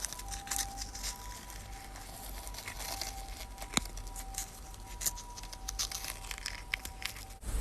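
Faint crinkling and scattered light clicks from handled craft material, with one sharper click a little before the middle. A faint steady high tone sits underneath.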